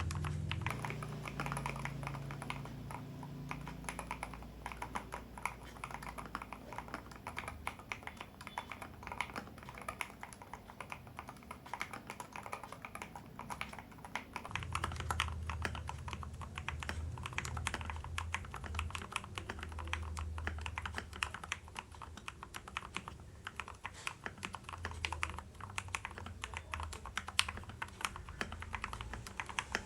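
Continuous fast typing on a Keydous NJ80 mechanical keyboard with a brass plate and dampener: a dense, steady clatter of keystroke clicks.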